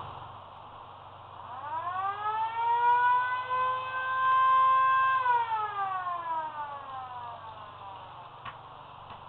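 Warning siren winding up about a second and a half in, holding a steady wail for about two seconds, then winding down and fading out, one full cycle. A short click comes near the end.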